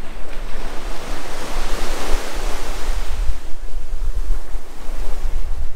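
Surf breaking and washing up a sand beach, one wave swelling about a second in and easing off after about three seconds, over wind buffeting the microphone with a constant low rumble.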